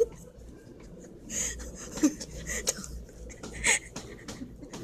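Women giggling in short, breathy bursts of laughter, three or four times.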